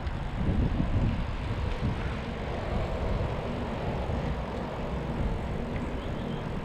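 Wind buffeting the microphone as the camera moves along, a steady low rumble, with a faint steady drone over it.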